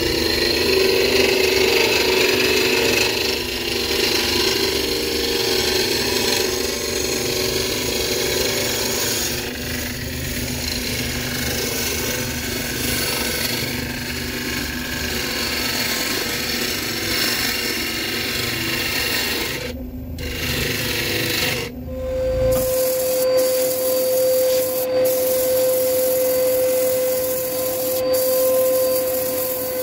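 A bowl gouge cutting the outside of a spinning green spalted-ash bowl on a wood lathe: a continuous scraping hiss as the wet wood peels off in long shavings. About two-thirds in it breaks off twice and gives way to sanding against the spinning bowl, with a steady whine.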